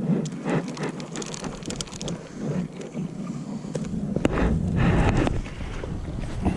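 Handling noise in a fishing kayak: irregular rustles, knocks and clicks, with a stronger low rumble about four to five seconds in.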